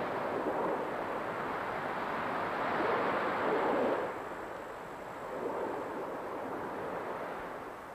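Rough sea waves surging and breaking, with wind. The rush swells to its loudest from about three to four seconds in, eases, then swells again more weakly about five and a half seconds in.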